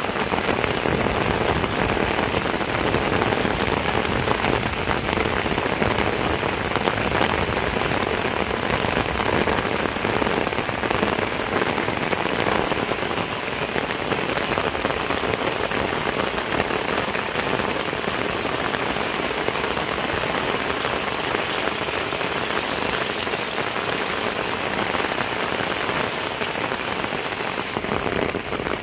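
Heavy rain falling steadily on roofs and wet ground, a dense even patter of drops.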